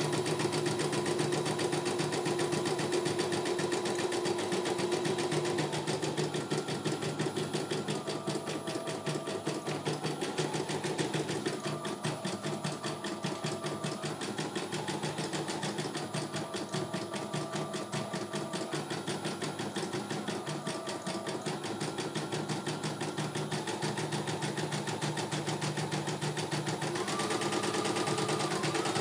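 CNY E900 computerised embroidery machine stitching a design: a fast, even run of needle strokes over a motor whine that steps up and down in pitch every few seconds.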